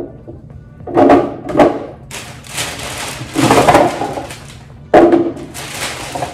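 Plastic storage containers being handled and set down, a few hollow clunks and knocks with some rattling in between.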